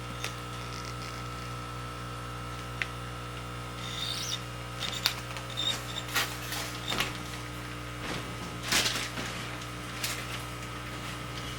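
Plastic fish shipping bags being handled: scattered crinkles, rubs and clicks from about four to ten seconds in, over a steady hum.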